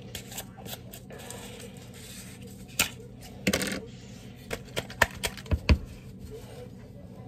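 Spice shaker jars being handled and opened: sharp clicks and taps of plastic shaker lids and jars, with a short rattling shake of seasoning about three and a half seconds in and a run of light clicks after it.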